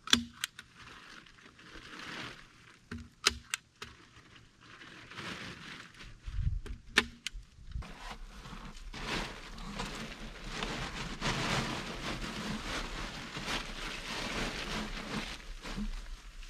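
A few sharp knocks and a dull thump from handling the wooden logs of a dugout shelter, then about eight seconds of steady rustling of a plastic tarpaulin as a person moves and works pressed against it.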